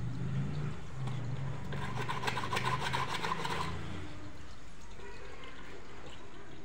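Quick scrubbing strokes of a shoe-cleaning applicator rubbed back and forth against a leather shoe, starting about two seconds in and lasting a second and a half or so. A low steady hum runs underneath through the first few seconds.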